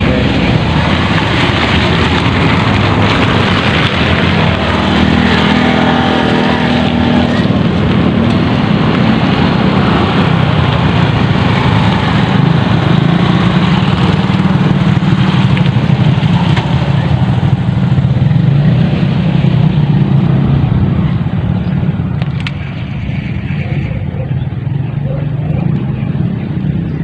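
A motor engine running steadily and loudly, with a stack of engine tones standing out for a second or two around five to seven seconds in.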